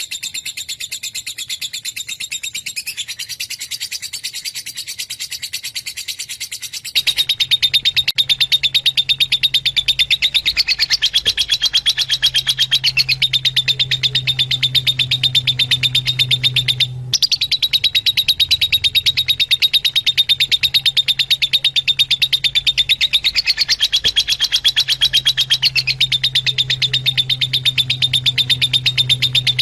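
Fischer's lovebirds chattering: a fast, unbroken stream of high-pitched chirps over a low hum. It jumps louder about seven seconds in and breaks off for a moment a little past the middle.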